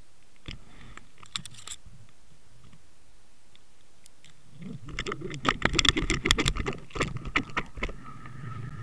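Underwater camera housing on a fishing line knocking and rattling as it is jerked over the seabed: a steady hiss with a few sharp clicks, then about five seconds in a dense run of loud, irregular clattering knocks.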